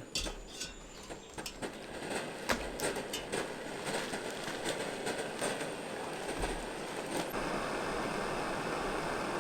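Backpacking canister stove burning under a cook pot with a steady rushing hiss, mixed with sharp clicks and knocks of metal cookware. About seven seconds in, the rush turns abruptly steadier and fuller.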